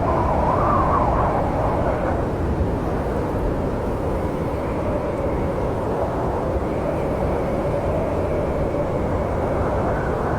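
Snowstorm wind blowing steadily with a deep rumble and a wavering whistle that rises over the first couple of seconds, then settles lower.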